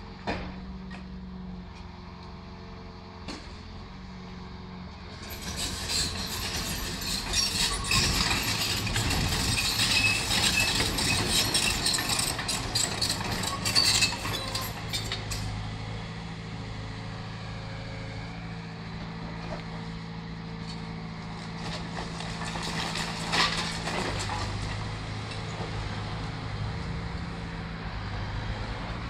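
Liebherr crawler excavator's diesel engine running steadily while it demolishes brick masonry. From about five seconds in until about fifteen there is a long stretch of crashing, clattering rubble and breaking brick, with another shorter burst near the end.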